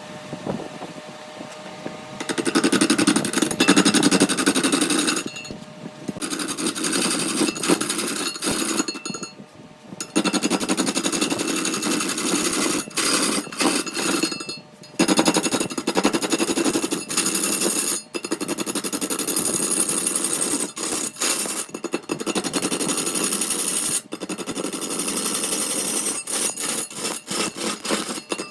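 Power tool working wood with rapid, repeated knocking, running in long stretches broken by several short pauses.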